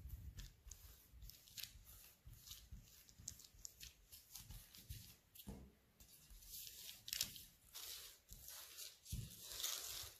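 Faint paper rustling, scraping and light ticks of shortcrust pastry being rolled out on baking paper and cut into strips, louder about two-thirds of the way through and again near the end.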